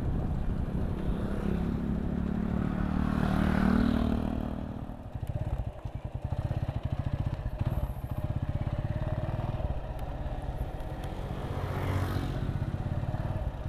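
Motorcycle engine running as it is ridden. The engine note climbs over the first few seconds, drops away about five seconds in as the throttle is eased off, then runs slower and steady.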